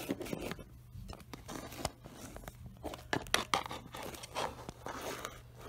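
Handling noise: scattered clicks, taps and rustles as small plastic Littlest Pet Shop figures are moved about by hand on a wooden surface close to the microphone.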